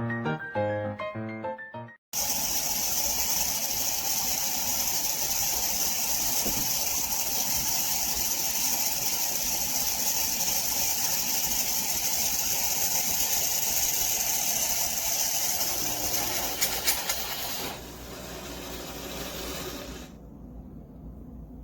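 A couple of seconds of music, then an abrupt cut to an automatic espresso machine running with a steady hissing, rushing noise, like steam or liquid being dispensed. The noise drops in level about four seconds before the end and drops again shortly after.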